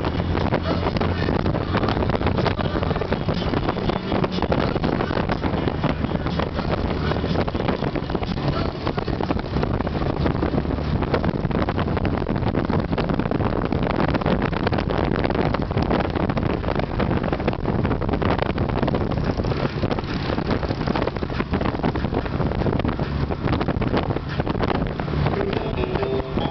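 Wind rushing over the microphone with the steady run of a 2003 Honda Gold Wing trike's flat-six engine underneath, heard from aboard the trike at road speed.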